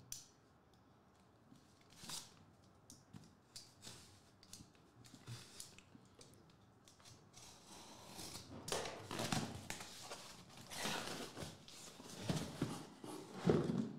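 Cardboard shipping case being opened by hand: a few light taps and clicks at first, then from about eight seconds in, scraping and rustling of cardboard as the case is pulled open and the boxes inside are lifted out.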